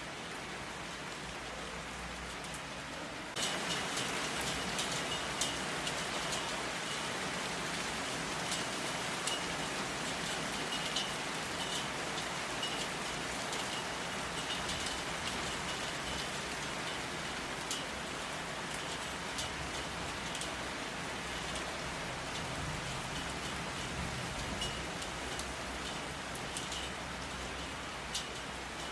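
Steady rain with many sharp drop ticks on a surface. It turns suddenly louder about three seconds in, then keeps on steadily.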